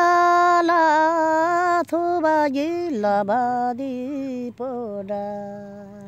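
An elderly woman singing a Tamang selo folk song unaccompanied, in long held notes: a high sustained note, then a drop to a lower note about three seconds in, held and fading near the end.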